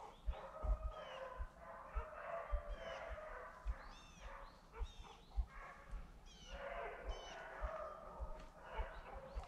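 A pack of beagles baying and howling, several voices overlapping in repeated calls, as hounds do when running a rabbit's scent trail. Dull low thumps sound under them throughout.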